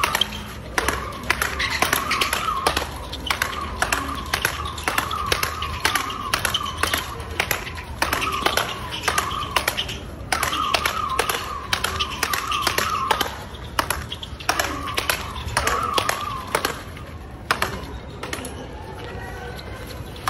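Speedball rackets striking the tethered ball in a fast doubles rally: a rapid stream of sharp hits that stops a few seconds before the end.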